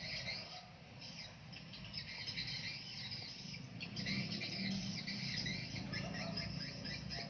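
Electric arc welder crackling as a tack weld is struck on a corner joint of 2x4 hollow steel tube. The crackle grows stronger about halfway through.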